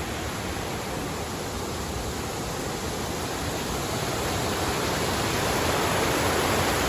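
Mountain gorge stream running high after rain, a steady rushing of fast water that grows slowly louder.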